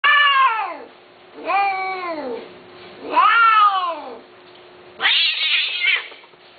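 Persian cats yowling during mating: three long drawn-out yowls, each rising and then falling in pitch, then a harsh, raspy screech about five seconds in.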